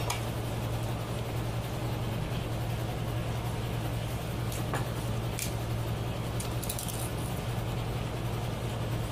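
A steady low hum over an even background noise, with a few faint light clicks from steel dishes being handled during the meal.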